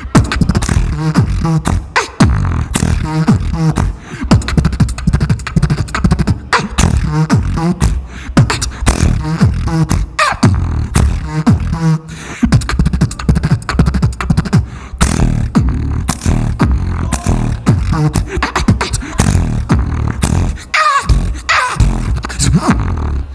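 Solo beatboxing into a handheld microphone: a fast, dense rhythm of sharp percussive clicks and hits over deep vocal bass tones. Near the end comes a falling pitched sweep, then the routine stops abruptly.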